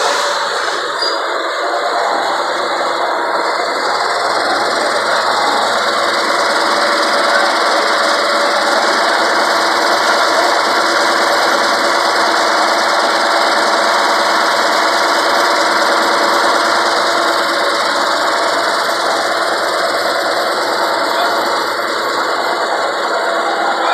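The blown GM Detroit Diesel inline-six, a two-stroke, of a 1954 LeTourneau-Westinghouse Tournarocker, running at a steady speed.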